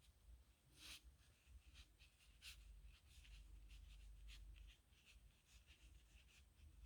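Nib pen scratching on paper in a string of short, faint strokes.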